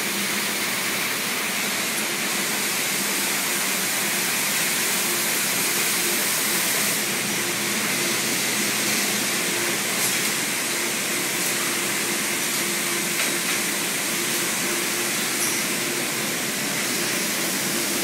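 Rows of circular sock-knitting machines running together on a factory floor: a steady, dense whirring hiss with a low, even hum underneath.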